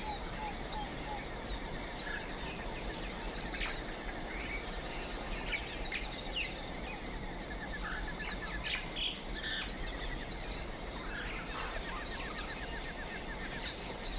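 Wild forest ambience: scattered bird chirps and short rapid trills over a faint steady hum of insects.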